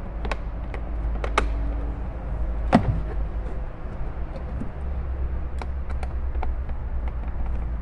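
Hand screwdriver driving a screw into the plastic dashboard panel of a children's ride-on toy Jeep: scattered small clicks and scrapes, the loudest about three seconds in.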